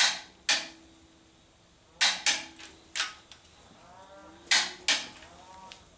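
Click-type torque wrench clicking as a bolt is pulled up to about 250 ft-lb: sharp metallic clicks, mostly in pairs, each with a brief ring. The loudest pair comes at the start and another about four and a half seconds in.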